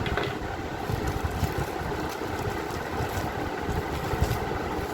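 Steady background rumble and hiss, with a few faint clicks and rustles as small microphone accessories are handled and searched for in their packaging.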